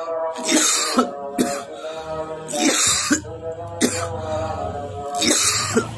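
Repeated coughing, a string of harsh bursts in quick succession, over background music with a steady held tone.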